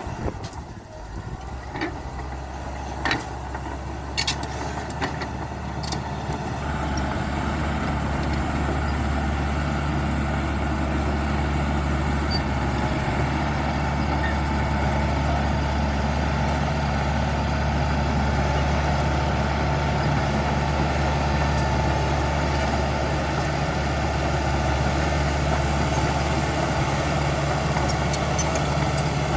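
CAT D5K XL bulldozer's diesel engine running steadily, getting louder about six seconds in, with a steady high whine over it. A few sharp knocks come in the first six seconds.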